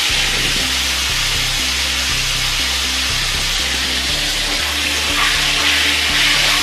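Pieces of lamb sizzling steadily in hot oil in a wok, turned now and then with a spatula. Background music with steady low bass notes plays under it.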